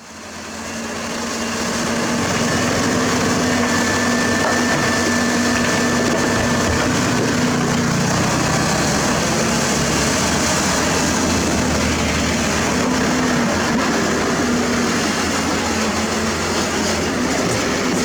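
Heavy diesel construction machinery, an excavator working alongside dump trucks, running steadily. The sound fades in over the first couple of seconds.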